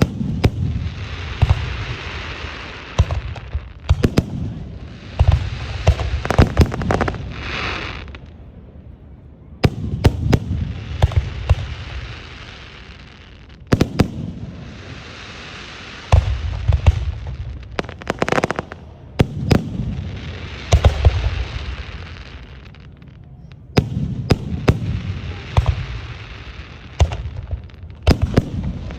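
Aerial fireworks display: volley after volley of shells bursting with sharp bangs and low booms, roughly every three to four seconds, each volley trailing off in a few seconds of crackle.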